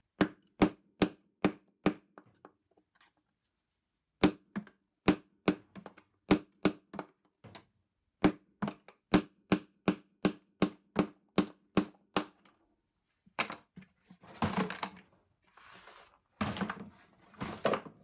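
Hammer tapping a steel punch to drive the collapsed drum bearing out of an Indesit Innex washing machine tub. Sharp metallic taps come about two or three a second, in three runs with short pauses between. Some irregular scraping noise follows near the end.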